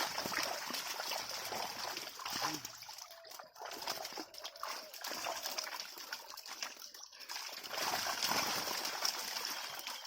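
Shallow water splashing and sloshing unevenly as people wade and work through it by hand and with a net.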